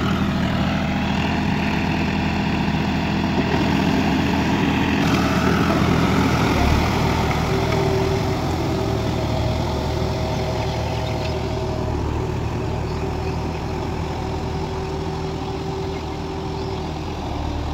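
John Deere 5310 tractor's three-cylinder diesel engine running steadily under load while pulling a rotavator through flooded paddy mud, growing gradually fainter in the second half as it moves away.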